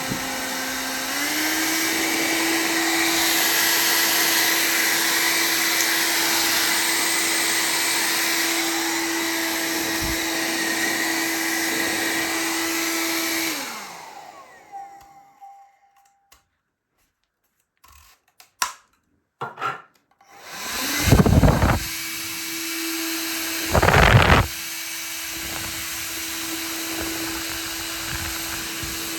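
Xiaomi Mi Ionic Hair Dryer H300 running with a steady whir and air rush, stepping up in pitch about a second in as it is switched to a higher setting. About halfway through it is switched off and winds down with a falling whine, leaving a few clicks and near silence. Then it starts again, with two short louder gusts of air noise.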